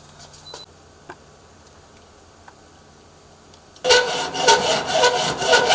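A saw cutting through a security door's lock-side frame to length starts about four seconds in: a loud, rasping cut with rapid, even strokes. Before it there are only a few faint ticks.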